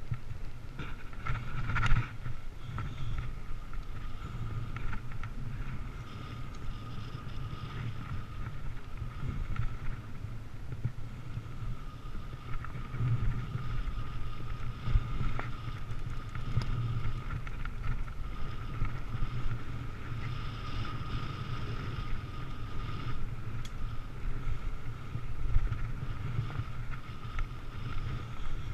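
Mountain bike riding down a dirt trail: wind rumbling on the camera microphone, with a steady high buzz and scattered knocks and rattles, the sharpest about two seconds in.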